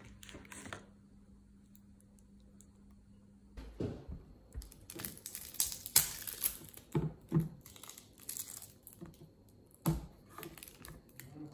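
Thin plastic wrapper crinkling and tearing as a drinking straw is pulled off a small soy milk carton and unwrapped, with light clicks from handling the carton. A faint steady hum at first, then a run of crinkles starting about four seconds in.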